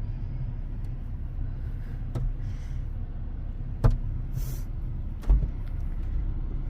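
Steady low rumble of a car heard from inside the cabin as it drives, with three short sharp knocks spread through it.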